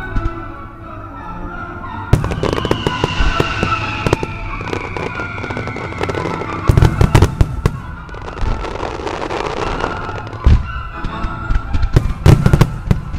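Starmine fireworks barrage: rapid cracks and booms of bursting shells, thickest in clusters about halfway through and again near the end.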